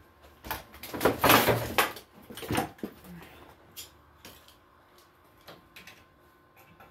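Knocks and rattles from something being handled: a quick dense cluster in the first few seconds, loudest about a second in, then a few scattered single clicks.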